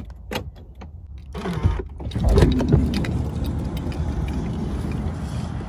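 A few small clicks and rattles, then the Toyota Sienna minivan's sliding side door opening about a second and a half in, the loudest part. After that comes a steady rush of outdoor noise through the open door.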